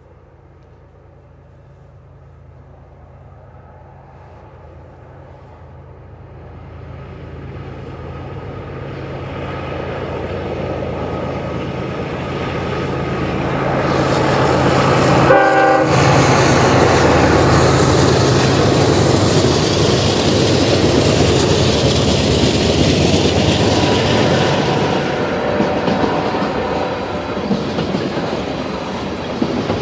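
Diesel freight locomotives working upgrade, their engine drone growing steadily louder as they approach and pass. This is followed by the rumble and clickety-clack of freight cars rolling by, with a brief break about halfway through.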